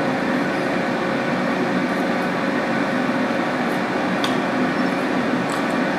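Countertop air fryer running, its fan giving a steady, even hum.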